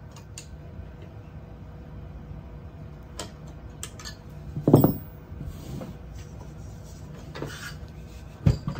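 Small metal clicks and clinks of screws, nuts and tools being handled while a 3D printer's bed plate is assembled, with a louder dull knock about five seconds in and another near the end.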